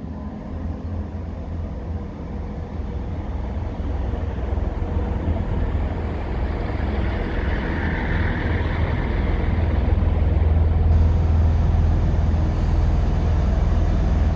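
Diesel multiple-unit train running, its low engine rumble building steadily louder, with a brief higher swell about halfway through.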